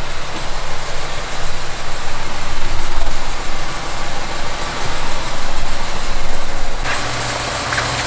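A vehicle engine running steadily, heard as an even rush of mechanical noise that swells and eases; near the end it changes abruptly to a steadier low hum.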